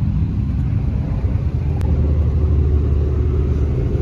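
A car engine idling steadily, with one faint click about two seconds in.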